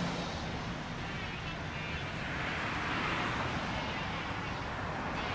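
Street traffic noise, with a vehicle passing about halfway through, its tyre and road noise swelling and then fading.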